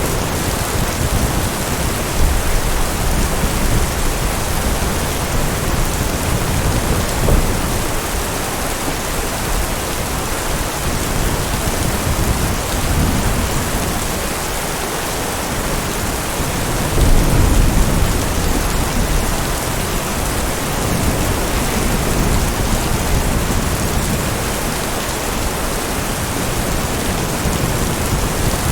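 Heavy rain falling steadily, with low rolling thunder rumbling several times; the loudest roll comes about two-thirds of the way through.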